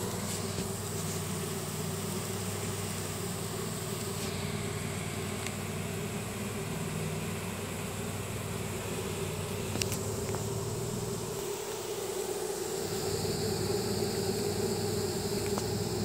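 Dense swarm of honey bees buzzing steadily at close range as they crowd in through a hive entrance, the sound of a swarm moving into its new home.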